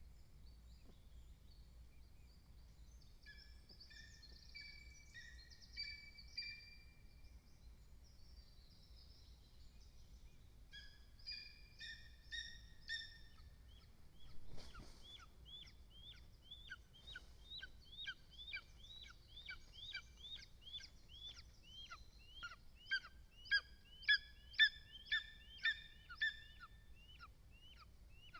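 Lesser spotted eagle calling: a long run of short, high, downward-slurred yelps about two a second, loudest near the end, after a few drawn calls in the first half.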